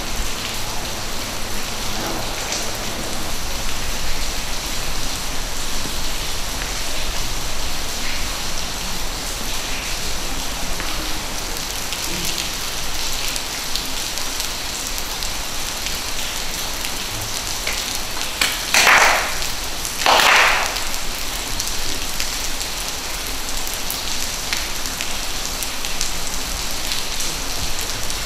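Steady rain on wet stone paving. Near the middle come two short, loud noisy sounds about a second and a half apart.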